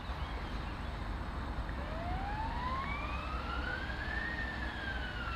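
An emergency vehicle's siren wailing: one slow rise in pitch followed by a slow fall. It plays over a steady low rumble.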